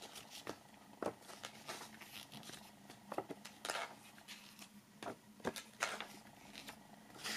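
Pages of a thin paper comic book being turned by hand: faint, soft paper flicks and rustles, about one a second.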